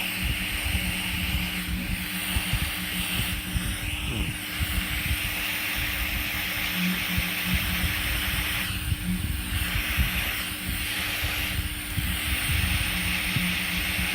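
Heat gun blowing hot air: a steady motor hum under a hissing rush of air that drops away briefly a couple of times in the second half. It is heating whitened stress marks on black 3D-printed plastic to turn them black again.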